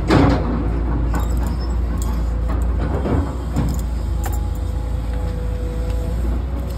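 Road traffic on a busy highway: a steady low rumble of passing cars and buses, with a few short clicks and knocks over it.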